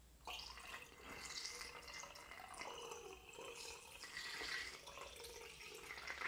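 Liquid pouring in a thin stream from a tilted glass jar into a plastic funnel and trickling through it into a glass jar below.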